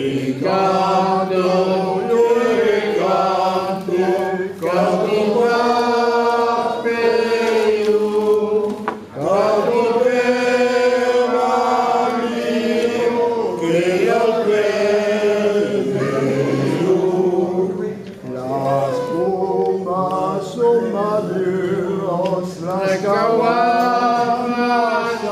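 An elderly man singing a song into a handheld microphone, in long held notes with short breaths between phrases.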